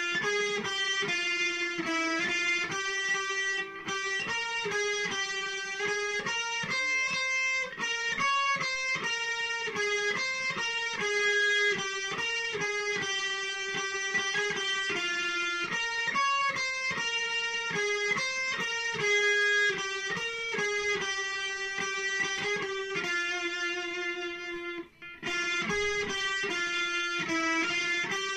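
Ibanez electric guitar played through a Marshall combo amp, picking a single-note melody over a repeating lower note, with one short break near the end.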